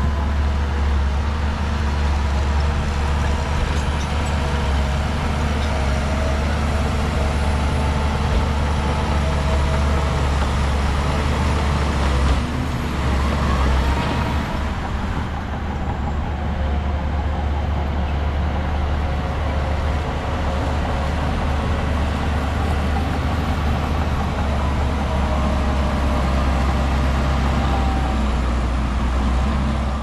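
Shantui crawler bulldozer's diesel engine running steadily under load, a deep constant drone with a brief louder surge about twelve seconds in.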